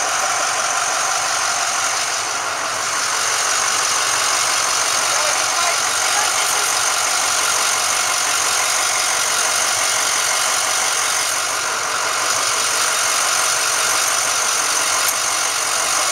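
Full-size school bus idling at a stop, a steady engine drone with no change in pitch.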